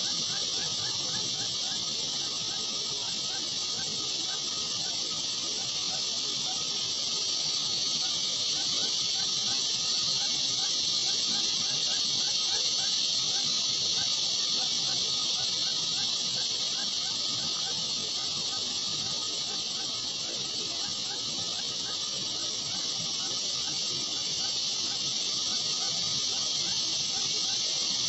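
A steady, high-pitched hiss that holds at an even level without a break.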